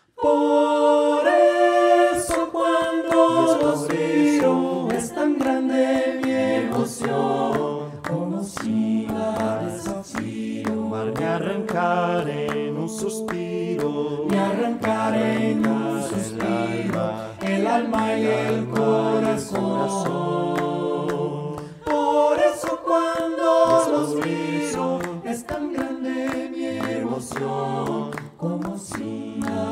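A cappella vocal ensemble singing in close harmony, with no instruments, entering suddenly at the start. Short percussive sounds keep a quick rhythm under the voices.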